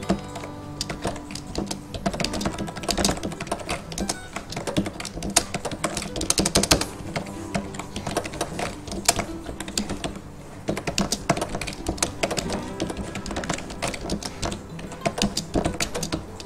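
Typing on a computer keyboard: keys clicking in quick runs with short pauses between them.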